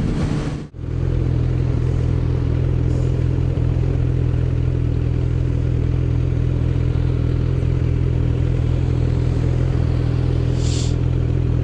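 Motorcycle engine running steadily at an even speed, with a hiss of wind and road noise above it. The sound drops out briefly less than a second in.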